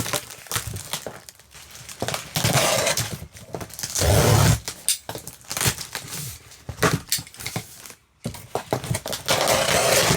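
A parcel being torn open by hand, its packaging crinkling and ripping in irregular bursts with small clicks.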